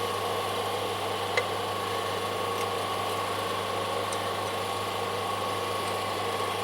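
Steady background machine hum with a constant pitched whine, and one sharp click about a second and a half in.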